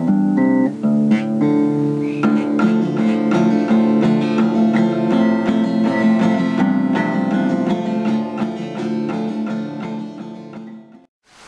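Background music led by plucked and strummed acoustic guitar, cutting off abruptly near the end.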